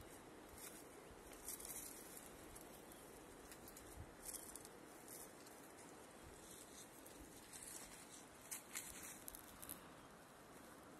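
Near silence outdoors with faint, scattered ticks and rustles of hens pecking and scratching at the ground in grass.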